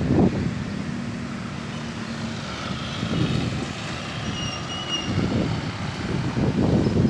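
Motorcycles and light road traffic crossing the railway tracks, engines swelling and fading as each one passes.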